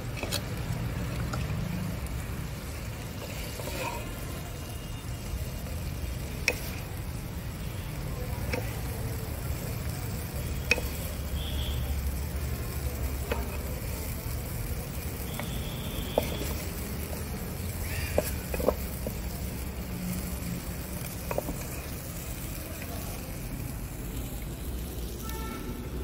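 Wooden spatula scraping and knocking against a clay cooking pot as cooked brinjal curry is scooped out, with sharp knocks every few seconds over a steady low rumble.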